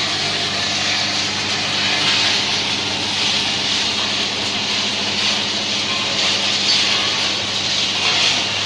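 Motor-driven rotary sand sieve running: a steady low hum from its drive under a constant hiss of sand tumbling and falling through the turning wire-mesh drum.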